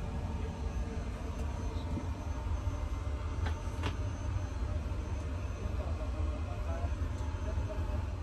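Steady low rumble of the Airbus A380 cabin's air conditioning and ventilation, with two sharp clicks about three and a half seconds in as the lavatory window shade's knob is handled.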